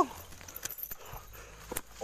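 Scattered rustles and crackles of someone moving through undergrowth, with low handling rumble on the phone's microphone.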